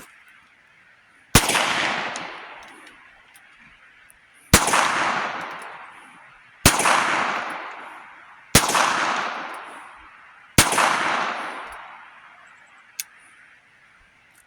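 Five shots from a .22 revolver, spaced about two to three seconds apart, each sharp crack followed by a long echoing tail.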